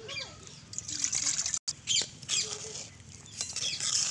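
Mutton curry with tamarind water bubbling in a clay pot over a wood fire as it comes to the boil. Chickens cluck now and then.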